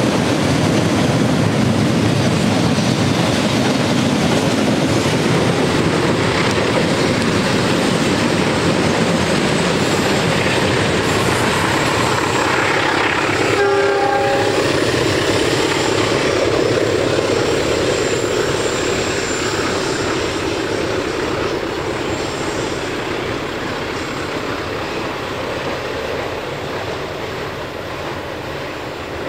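Freight train of fuel tank wagons rolling past with a steady rumble and rattle of wheels on rail. About halfway through, a diesel locomotive's horn gives one short blast. Then the train's sound fades steadily as it pulls away.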